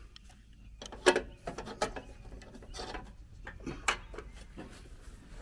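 Irregular metallic clicks and clinks of hand pliers working at the clips that hold a riding lawnmower's cutting deck, the loudest about a second in.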